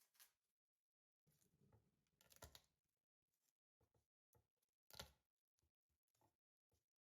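Faint, irregular rustling and a few light clicks and knocks, the handling noises of food preparation, with the sharpest click about five seconds in.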